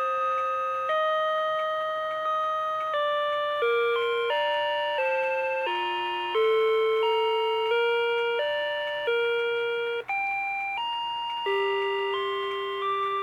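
Rhythm Watch "Weektime" melody alarm clock playing one of its built-in electronic alarm tunes: a slow melody of single notes, each starting sharply and fading away.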